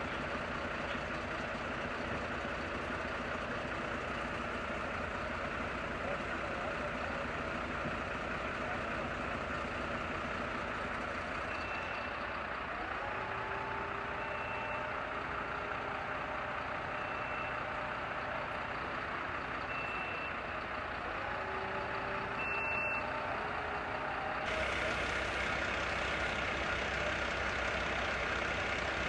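A heavy vehicle's engine running steadily, revving up twice, with a short high beep about every two and a half seconds through the middle of the stretch. Near the end the sound changes abruptly to a louder, fuller engine hum.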